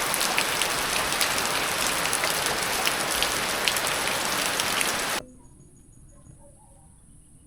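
Steady rain falling, with many distinct drop hits, that cuts off abruptly about five seconds in. After the cut there is only a faint steady high hiss with a few faint bird chirps.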